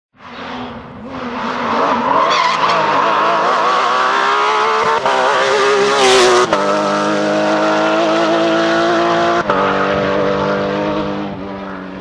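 Porsche 911 rally car's flat-six engine at full throttle, climbing in pitch as it approaches, with a brief loud burst of noise as it passes close about six seconds in. It then pulls away with two upshifts, the pitch dropping each time, and fades near the end.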